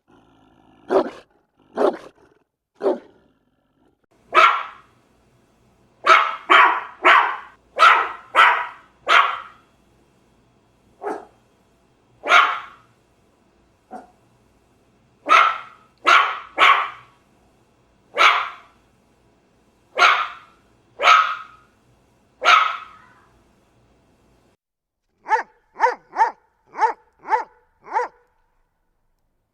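A small dog barking, in single barks and quick runs of several. About 25 seconds in, a Doberman takes over with a brisk, even run of barks, about two a second.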